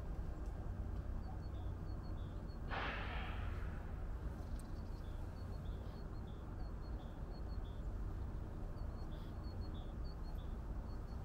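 Outdoor ambience: a steady low rumble with faint high chirps repeating about once a second. About three seconds in comes a single breathy rush lasting about a second.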